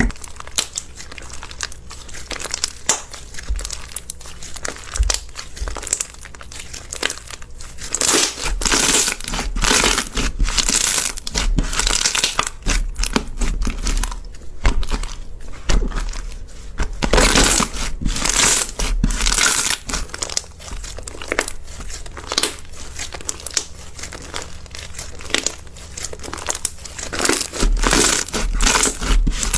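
Slime being squished and kneaded by hand: a dense, continuous stream of small clicks and crackles, louder in stretches.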